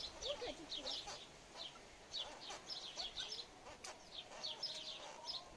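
Domestic hen clucking softly, with a run of short, high chirps repeating throughout.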